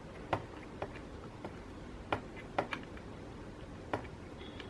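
A handful of irregular small clicks from a precision Phillips screwdriver working a tiny screw out of a smartphone's inner frame.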